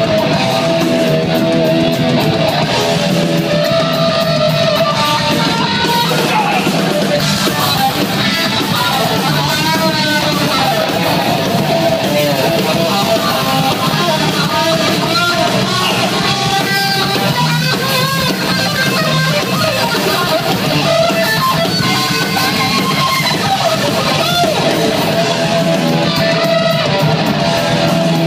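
A live hardcore punk band playing loud, with distorted electric guitars, bass and drums, heard from the audience in a club.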